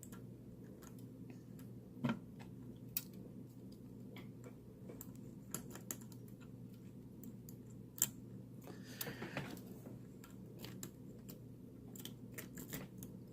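Metal rake pick being worked in and out of a Guard Security padlock's pin-tumbler keyway under tension from a tension wrench, giving a string of faint, irregular clicks and ticks with a few sharper ones, over a low steady hum.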